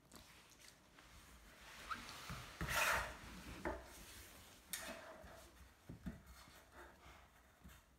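Tennis balls rubbing and bumping in a metal muffin tin as a dog noses them around, with the tin shifting on a hardwood floor. The loudest stretch of scraping comes about three seconds in, followed by a few light knocks.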